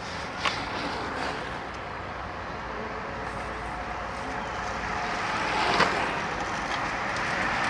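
A bunch of racing bicycles approaching up a lane, a steady hiss of rolling noise that grows louder, with a sharp click about half a second in and another just before six seconds in.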